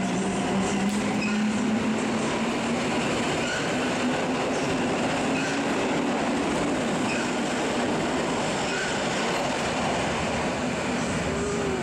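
Koleje Mazowieckie electric multiple unit running along the platform of an underground station, a steady rumble of wheels on rail. A low motor hum is strong at first and fades over the first half.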